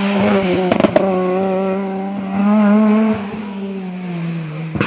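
Rally car engine passing at speed and pulling away, with a few sharp cracks about a second in. The engine revs briefly a little after two seconds, then its note sinks slightly and fades as the car drives off.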